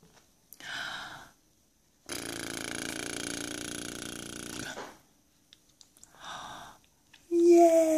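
A baby's long, creaky grunt lasting nearly three seconds, with short breathy sounds before and after it while he is being spoon-fed. Near the end a louder drawn-out voice starts, falling in pitch.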